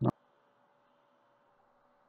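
A single short click right at the start, then near silence.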